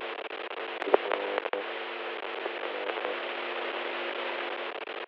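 Steady hiss with a low, constant hum and a few faint clicks about a second in: the surface noise of an old film soundtrack carrying on after its dialogue.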